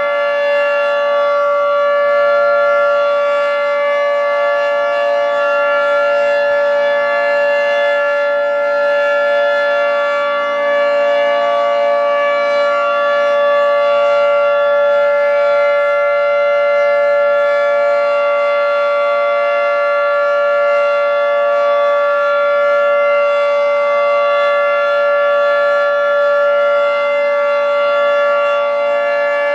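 Federal Signal 2T22 dual-tone rotating outdoor warning siren sounding the steady alert signal during a siren test: its two tones hold a constant pitch at full speed, swelling and easing slightly in loudness as the head rotates.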